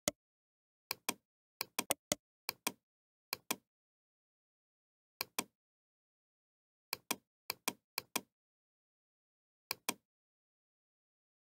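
Computer mouse clicks, mostly in quick pairs, each a press and release, about a dozen pairs with short gaps between them.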